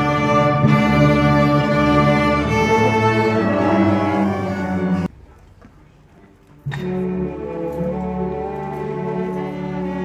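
String ensemble playing sustained bowed notes, with a violin close to the microphone. The music cuts off abruptly about five seconds in, goes quiet for about a second and a half, and starts again.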